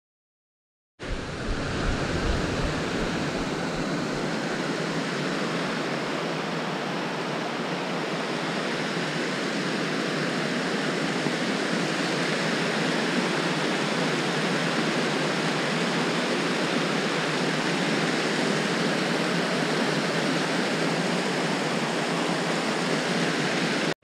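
Small mountain waterfall cascading down rocks: a steady, loud rush of water that starts after about a second of silence.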